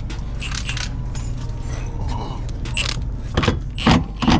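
Cordless impact wrench hammering on a bolt in three short bursts near the end, after light metallic clinks and rattles of tools.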